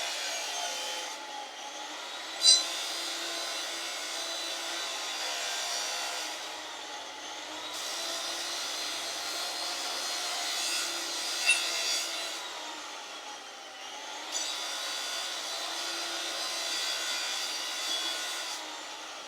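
An electric abrasive power tool cuts or grinds iron bar with a continuous gritty hiss, its motor tone rising and falling slowly as the load changes. There are two sharp metallic knocks, one a couple of seconds in and one about halfway.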